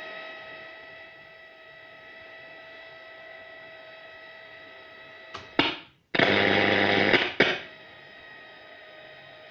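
Late-1960s radio giving out steady static hiss with several faint constant whistles, as between stations. A loud burst of static comes about five and a half seconds in, briefly cuts out, then comes back loud for over a second before dropping back to the hiss.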